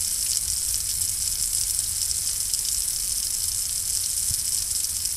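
Water spraying steadily from a hose spray-gun nozzle, an even hiss with a low rumble beneath, flushing out a slot cut in the brickwork's mortar.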